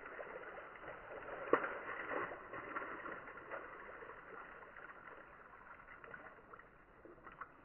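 Creek water splashing and sloshing as it settles after something is dropped in from the bank, slowly fading, with one sharper splash about one and a half seconds in.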